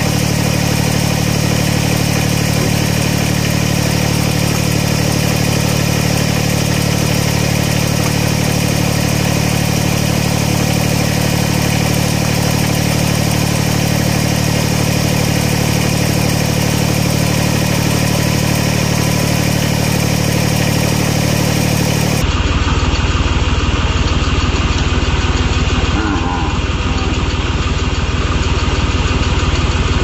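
Kubota BX25D subcompact tractor's three-cylinder diesel engine running steadily. Near the end the engine sound turns heavier and pulsing.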